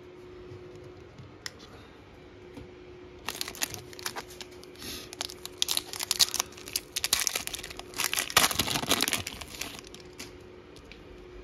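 Plastic foil wrapper of a 2023 Donruss football card pack being torn open and crumpled. A run of crinkling and tearing begins about three seconds in, is loudest near the end, then dies away.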